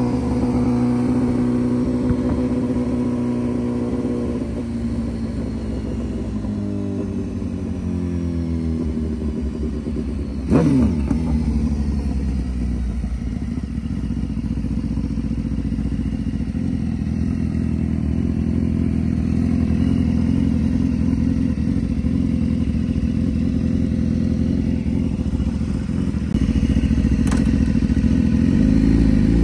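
BMW HP4's inline-four engine with a full exhaust, running steadily with the revs easing up and down. About ten seconds in there is a sudden sharp rev whose pitch falls away quickly. The engine note grows louder near the end.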